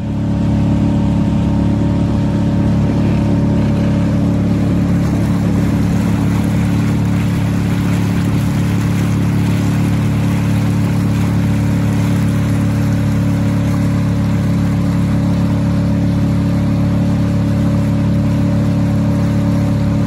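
Small outboard motor running at a steady speed, pushing an inflatable boat over the water. It holds one even, droning pitch throughout, with a hiss of wind and water underneath, and fades up quickly at the start.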